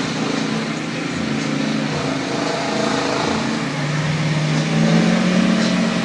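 Vehicle engine running steadily, growing louder about four seconds in.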